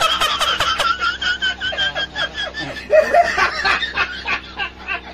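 A man laughing, high-pitched and without letup, in quick repeated pulses of cackling.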